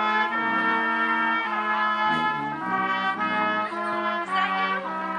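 A small band of tuba, trombone and clarinet playing a tune in held notes that change every half second or so, with a low note sustained under much of it.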